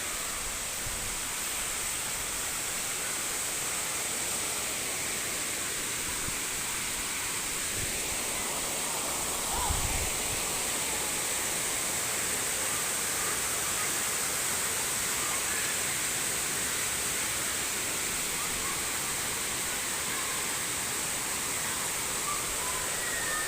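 Waterfall, a steady rush of falling water. A brief low thump comes about ten seconds in.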